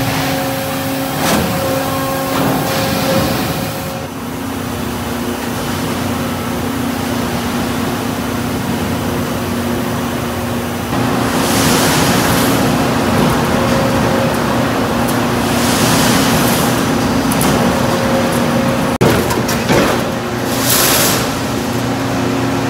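Coil-processing stretcher leveler and roll feed line running with sheet steel feeding through it: a steady low machine hum, with repeated surges of hiss over the second half.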